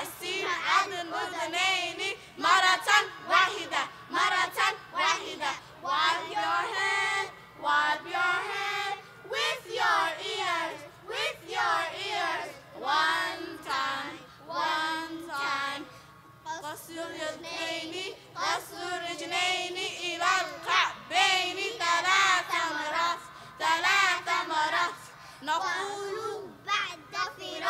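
Children's voices singing a nasheed in short phrases, a devotional song about how to perform wudu (ritual ablution).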